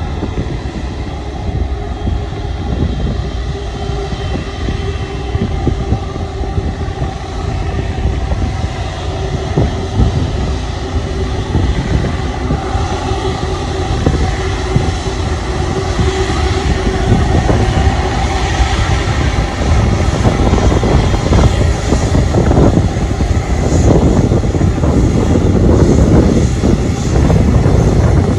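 Airbus A330-300 airliner's jet engines running as it rolls along the runway: a steady whine over a low rumble, growing louder as the aircraft comes close.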